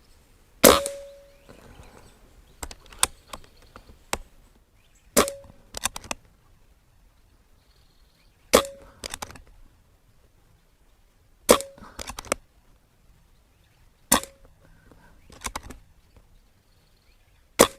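Barra 1100Z .177 PCP air rifle with a moderator, fired shot after shot about every three seconds. Each sharp crack carries a brief ringing note, and quieter mechanical clicks between the shots come from cocking and loading the rifle.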